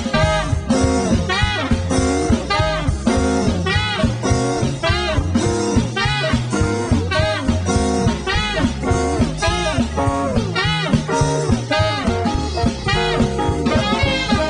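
A band playing an instrumental jump-jazz number with a steady swinging beat.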